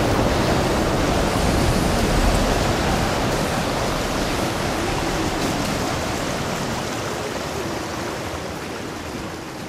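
Steady rushing of heavy rain and wind from a thunderstorm, slowly fading out.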